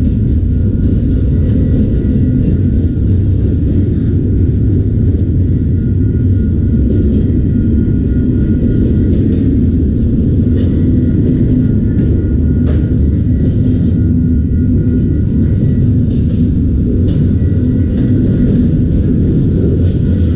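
Autorack freight cars rolling past close by: a steady, loud low rumble of steel wheels on rail, with faint light ticks.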